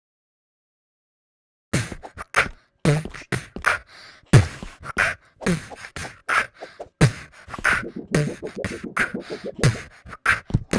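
Beatboxing: a quick mouth-made beat of deep kicks, snares and clicks, starting a little under two seconds in.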